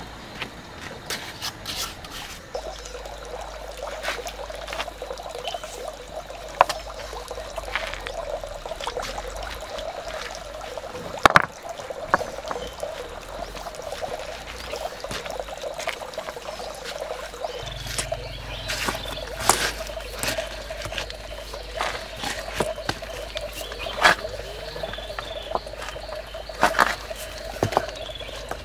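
River stones being knocked and pressed into wet cement mortar by hand, giving scattered sharp stone-on-stone clicks, the loudest about eleven seconds in. Under them runs a steady chorus of frogs.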